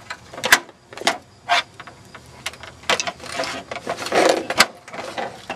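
Screwdriver prying apart the plastic casing of a CRT computer monitor: several sharp plastic clicks and cracks, with scraping in between.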